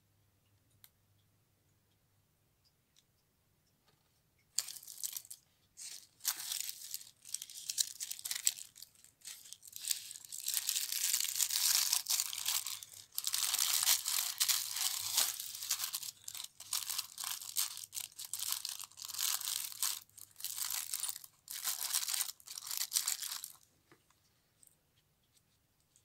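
Packaging being handled and rummaged: a long run of irregular crinkling and rustling that starts about five seconds in and stops a couple of seconds before the end.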